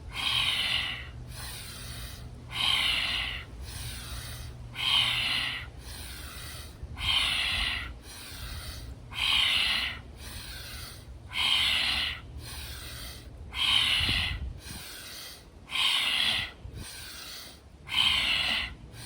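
A woman doing Bhastrika (bellows breath), breathing forcefully through the nose. There is a loud rushing breath about every two seconds, nine in all, with quieter breaths between them.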